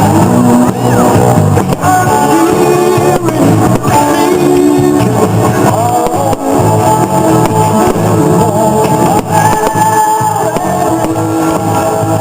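Rock music with a singer and guitar, played loud with a steady beat.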